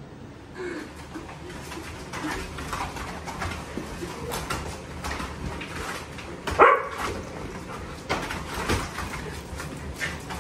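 Excited dogs whining and whimpering with scrabbling, clicking and rustling as they clamber about a collapsible plastic whelping box. One loud, short dog call stands out a little past the middle.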